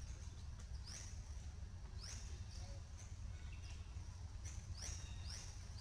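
Several short, high chirps from an animal, each sweeping quickly downward in pitch, coming at uneven intervals about a second apart, over a steady low outdoor rumble.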